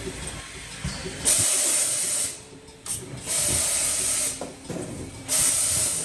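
Robotic milking machine giving three hissing bursts, each about a second long and about two seconds apart, over a low mechanical background.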